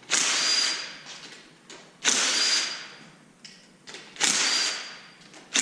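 Power driver with an 8 mm socket spinning out the valve cover bolts on an LS V8, in short whirring runs about two seconds apart, each carrying a steady high whine and tailing off. A fourth run starts right at the end.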